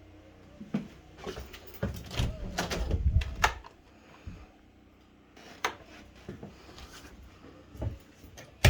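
Indoor handling sounds: several sharp clicks and knocks of a door and switches being worked, with a low rumble for about a second and a half near the middle.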